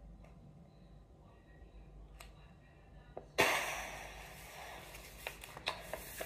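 A sudden loud sigh, breathed out hard, about halfway through, fading over a second, then soft rustles and taps of a sheet of paper being handled on a stone tabletop.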